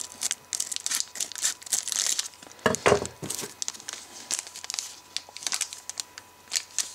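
Foil wrapper of a trading-card pack crinkling as it is cut open with scissors and handled, in quick irregular crackles, with a louder bump about three seconds in.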